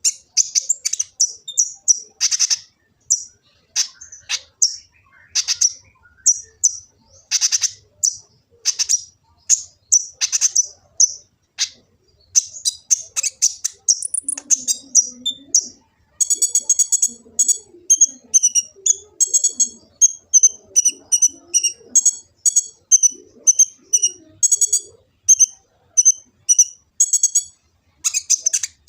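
A 'kolibri ninja' sunbird singing: a fast, very high-pitched chattering of chirps and trills. About halfway in, the song turns into a regular series of short, ringing notes, a couple each second.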